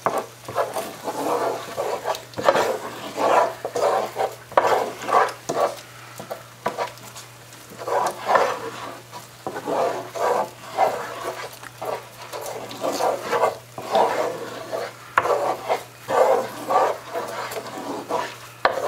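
Wooden spoon stirring and scraping a thick cream-cheese and green chili sauce around a nonstick electric skillet, in repeated uneven strokes.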